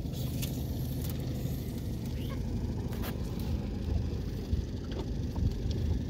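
A small fishing boat's motor running steadily at trolling speed, giving a low, even rumble, with a few light clicks over it.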